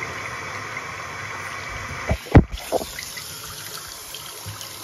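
Water running from a bathroom sink tap, a steady trickling rush. A little over two seconds in come a few dull thumps in quick succession, the middle one the loudest.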